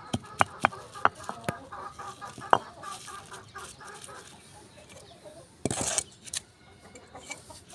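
Medicine tablets being pounded to powder, heard as a quick run of sharp knocks in the first two and a half seconds. Hens cluck throughout, and there is a short rustling noise about six seconds in.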